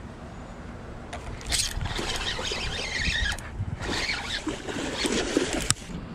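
A hooked goldline bullseye snakehead splashing and thrashing at the water's surface as it is reeled in to the bank, in two bouts with a short pause between. The sound stops abruptly near the end as the fish is lifted out of the water.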